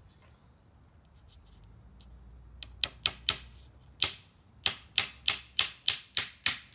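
Hammer driving a nail through a wooden 1x2 crosspiece into the leg of a homemade A-frame level: a dozen or so sharp blows starting about two and a half seconds in, first a few uneven taps, then a steady run of about three blows a second.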